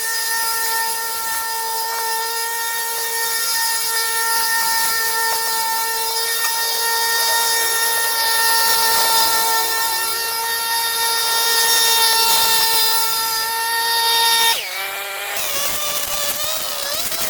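Small power tool's motor running at one steady pitch, then cutting off suddenly near the end.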